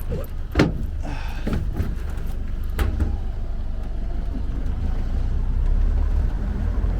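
Truck engine and road rumble heard from the open back of the truck, growing slowly louder as it gets going, with a couple of sharp knocks in the first three seconds.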